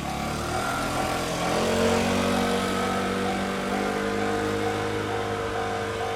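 Japanese level-crossing warning bell ringing steadily, about two rings a second. Underneath it runs a vehicle's steady hum, which rises in pitch about a second and a half in.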